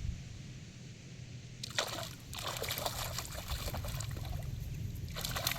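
Water splashing and sloshing in irregular bursts, starting about one and a half seconds in, with a brief lull shortly before the end.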